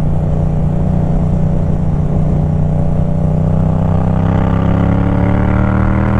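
Yamaha MT-07's parallel-twin engine through a Black Widow carbon exhaust with the dB killer removed, under way on the road. It runs steady at first, then the pitch climbs gradually through the second half as the bike accelerates in one gear.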